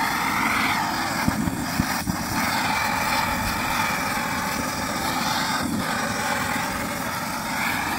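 Handheld gas blowtorch running with a steady rushing flame as it sears skewered meat on a grill. There are a couple of faint clicks a second or two in.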